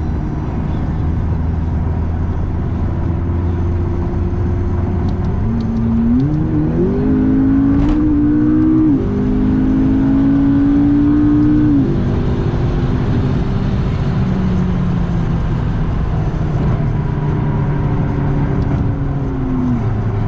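McLaren supercar's twin-turbo V8 accelerating hard at highway speed, heard from inside the cabin with tyre and road noise. The engine note climbs from about six seconds in and drops at a few quick upshifts, then holds and eases off near the end, on a run to about 130 mph.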